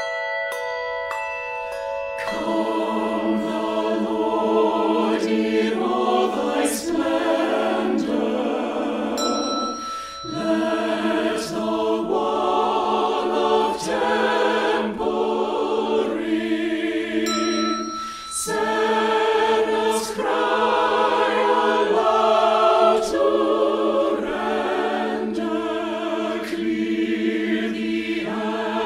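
Church choir singing a hymn in parts with instrumental accompaniment over a steady held low note. It opens with a couple of seconds of ringing, chime-like tones before the voices come in.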